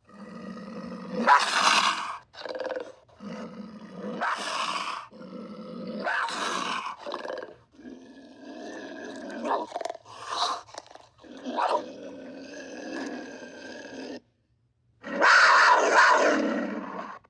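Florida panther calling: a series of calls separated by short pauses, the loudest one near the end.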